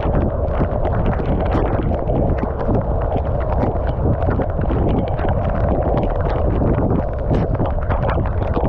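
Wind rushing over the microphone of a camera on a road bike being ridden, steady and loud, with a dense scatter of small ticks throughout.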